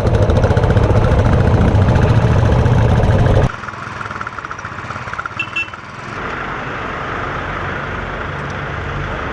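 Engine running close by with a loud, rapid low throb, cut off abruptly about three and a half seconds in, then a quieter, steady engine hum.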